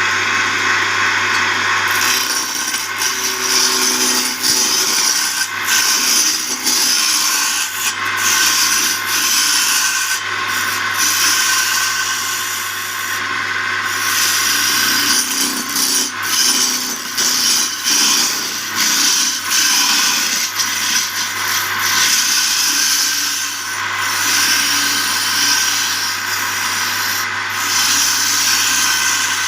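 A tool working wood: continuous rasping, scraping wood noise that swells and dips without a break, over a steady low hum.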